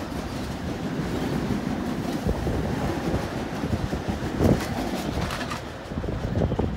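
Bombardier M7 electric multiple-unit train rolling past and pulling away as a steady rumble, with a few wheel knocks and one loud clunk about four and a half seconds in. The rumble drops briefly near the end as the last car clears.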